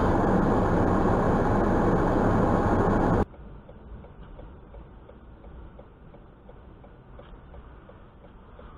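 Loud, steady rumble of car cabin and road noise picked up by a dash cam, cutting off abruptly about three seconds in. A much quieter low hum follows from a car waiting at a light, with faint regular ticking about two times a second.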